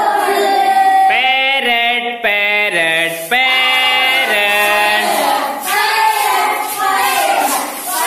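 A group of children singing a rhyme together in chorus.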